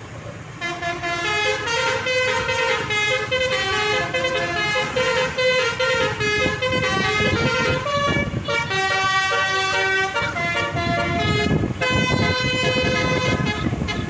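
Basuri telolet bus horn playing a melody, a quick run of stepped notes that starts about half a second in, over low vehicle rumble.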